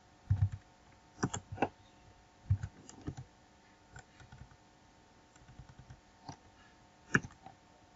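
Computer keyboard keys being tapped in short irregular bursts, with a few low thuds among them and one sharper, louder click about seven seconds in.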